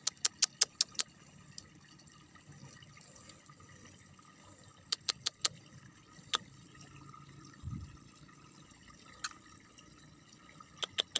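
Small sharp wet clicks and pops from the water and mud at an eel burrow, in short clusters: a quick run of five near the start, three about halfway, single ones after that, and three more near the end. A dull low thump falls a little past the middle.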